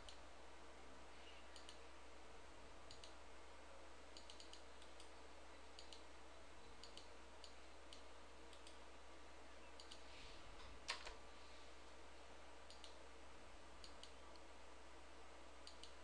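Faint, scattered computer mouse clicks, a dozen or so at uneven intervals, some in quick pairs, with one louder click about eleven seconds in, over near-silent room tone.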